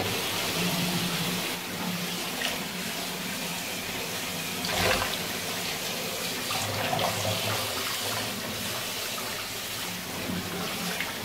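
Steadily running water, with a brief louder rush about five seconds in.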